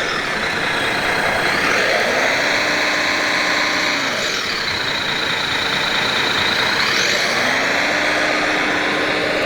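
Electric motors of large-scale RC construction models whining, speeding up and slowing down twice so the pitch rises, holds, then falls, over steady background noise.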